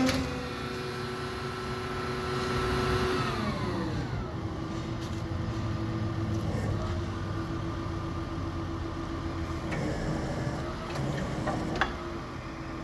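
Diesel engine and hydraulics of the carrier machine working a Krupp CC4000 hydraulic demolition shear. The engine runs at raised revs, winds down to a steady idle about three to four seconds in, and a few clicks and one sharp knock come near the end.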